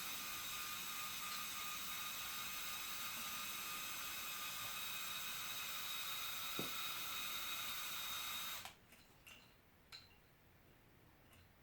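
Small Lego electric motor driving a motorized Lego helicopter's hook winch, running with a steady high whine as the hook is let out. It cuts off suddenly about three-quarters of the way through, followed by a few faint clicks.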